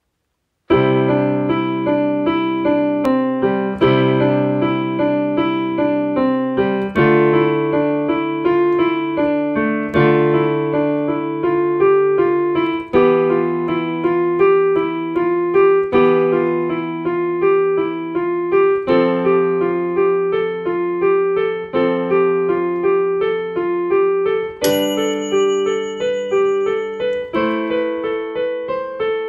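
Solo piano playing a gentle, steadily repeating pattern of notes, the chord changing about every three seconds; it starts about a second in.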